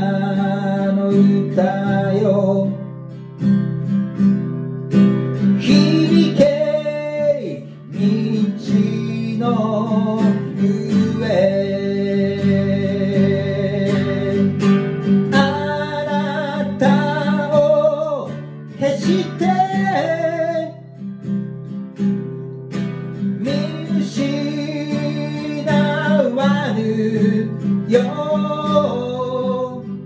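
A man singing a folk song while strumming an acoustic guitar in a steady rhythm, his voice rising and falling in long held lines.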